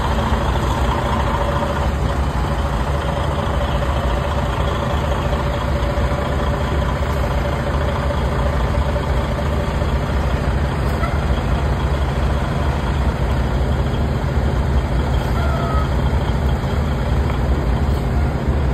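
Semi-truck diesel engine idling steadily, a low even drone.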